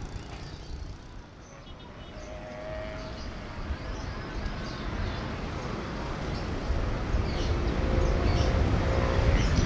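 Diesel locomotive of an Indonesian local passenger train approaching, its low engine rumble growing steadily louder through the second half.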